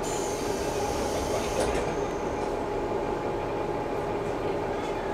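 Interior sound of a JR KiHa 11-100 diesel railcar: its diesel engine running steadily under a continuous cabin rumble.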